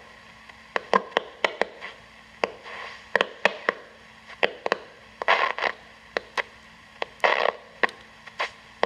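Shortwave static from a Panasonic RF-562D portable radio: sharp, irregular crackles over a steady hiss and a faint hum, with two brief noisy swells around the middle.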